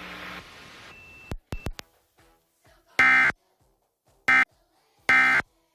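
Three short Emergency Alert System end-of-message data bursts, the screechy digital tones that close an EAS test alert, each about a third of a second long and roughly a second apart. A few faint clicks come before them.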